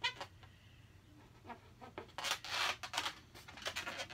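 Felt-tip marker drawing stripes on an inflated latex balloon: the tip squeaks and rubs across the rubber in a series of strokes, a brief squeak at the start, one longer stroke in the middle and several short ones near the end.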